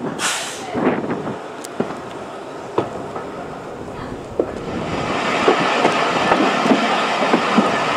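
Class 302 EMU driving trailer coach rolling slowly along the track: steel wheels on rail with scattered clicks and knocks, and wind buffeting the microphone in the first seconds. From about five seconds in, the rolling noise becomes louder and steadier, with many small clicks.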